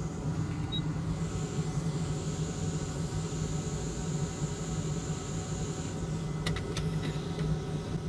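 Hot air rework station blowing steadily through its nozzle while a chip is reflowed. It makes an even whooshing noise with a low hum, and a few faint ticks come near the end.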